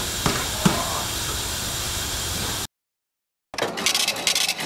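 Steady hiss of compressed air at a tire changer, with a few knocks as a tire is worked onto a wheel, cutting off abruptly a little over halfway through. After a short silence, a cash register's rapid clatter starts near the end.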